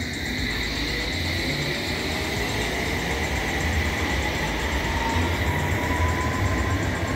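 London Underground electric train running, with a steady rumble and an electric whine from its motors that rises slowly in pitch as the train picks up speed.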